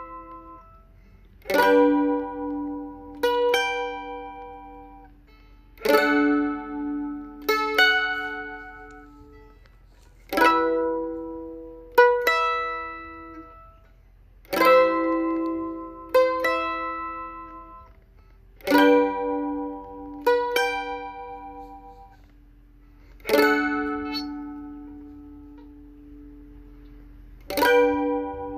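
Solo mandolin playing a slow tune: single struck chords and notes, about one every two seconds, each left to ring and fade, with one chord held ringing for several seconds near the end before the next.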